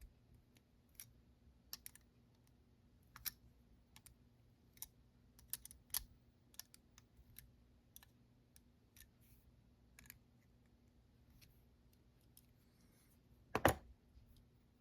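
Faint, irregular small metallic clicks and ticks as nuts are worked off the machine screws holding a laminated Master Lock No.3 padlock together, with one louder knock near the end.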